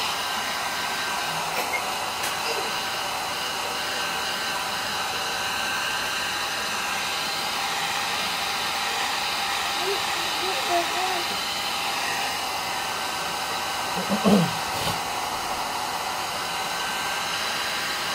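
Small handheld Nova hair dryer running on hot air, blowing in a steady even rush with a faint whine. One short low sound stands out late on.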